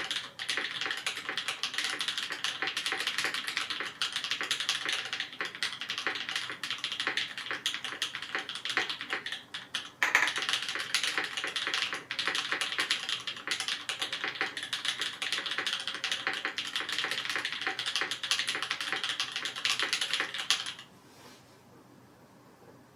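Fast typing on a Perry Mc65 mechanical keyboard with lubed BCP switches (H1 bottom housing, Kailh black stem, vintage Cherry top) in an anodized aluminium plate, under GMK keycaps: a dense, continuous run of keystrokes. It breaks off briefly about halfway and stops a couple of seconds before the end.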